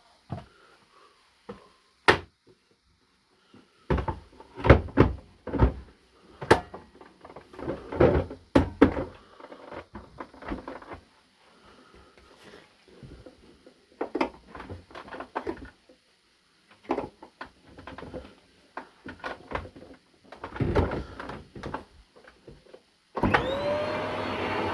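A series of irregular knocks and clicks, then about a second and a half before the end the Arçelik vacuum cleaner's motor switches on and spins up with a rising whine that settles into a steady run.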